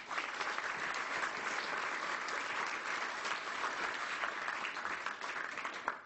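Audience applauding, many hands clapping at a steady level, dying away at the end.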